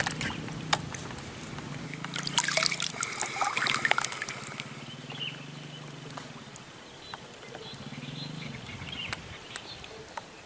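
River water sloshing and trickling around a person standing shoulder-deep in it. A cluster of small splashes and clicks comes between about two and four seconds in.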